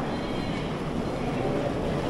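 Steady low rumble of vehicle engines running, with the general din of a busy street or bus terminal.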